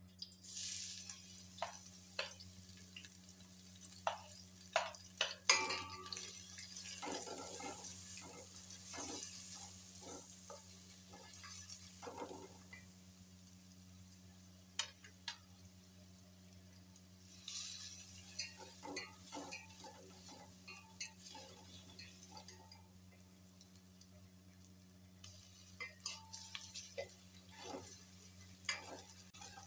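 Sliced onions dropped into hot oil in a stainless-steel pot, sizzling, then stirred with a spatula that scrapes and clicks against the pot. The sizzle starts about half a second in and swells again several times as the onions are turned.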